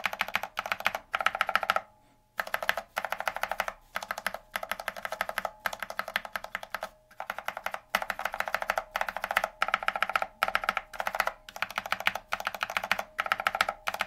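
Cherry MX Black linear switches in a Glorious GMMK mechanical keyboard pressed over and over with one finger: quick runs of key clacks, with short breaks about two seconds in and again around seven seconds.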